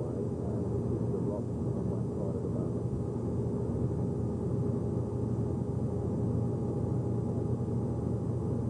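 Steady road and engine noise inside a moving vehicle driving along a highway: an even low drone with a faint steady hum over it.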